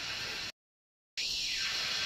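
Steady high hiss of forest ambience, broken near the middle by just over half a second of dead silence before it resumes at the same level.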